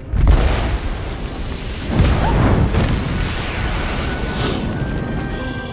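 Two explosions: a deep boom just at the start and another about two seconds in, each rumbling away slowly, over film score music.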